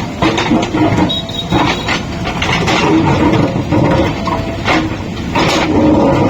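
Diesel engine of a JCB 3DX backhoe loader working under load, with a few sharp metallic clanks.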